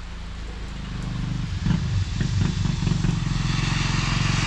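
A car approaching on a rain-soaked road: a low engine hum and the hiss of tyres on wet asphalt growing louder from about a second in, over the steady noise of falling rain.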